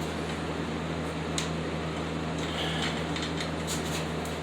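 Steady low electrical or fan hum, with one light click of metal parts being handled about a second and a half in and a few fainter clicks near the end.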